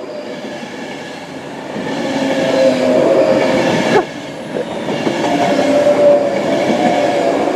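Class 390 Pendolino electric train passing through, its electric drive giving a steady wailing tone over the rumble and clatter of the wheels, getting louder from about two seconds in.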